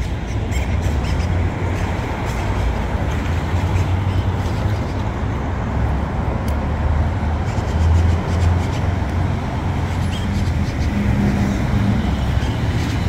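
Steady road traffic noise: a continuous low rumble with a hiss from passing cars, without any single pass standing out.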